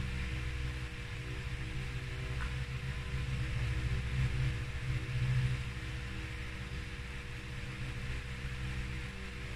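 A steady low hum with a hiss above it, swelling slightly about four to five seconds in.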